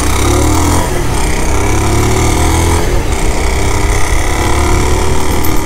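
Motorcycle riding at speed, its engine pitch rising, dropping about three seconds in and rising again, under heavy wind rumble on the handlebar-mounted microphone.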